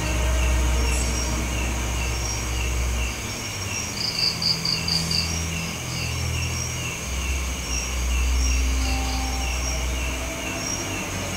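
Crickets chirping steadily at night, about two chirps a second, with a quick run of about five higher chirps around four seconds in. A low rumble swells and fades beneath them.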